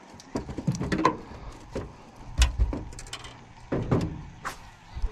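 Irregular knocks and clatter with a few dull thumps, the heaviest about two and a half seconds in.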